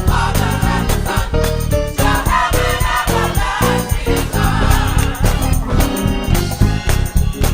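Gospel choir singing, backed by a band with a steady beat.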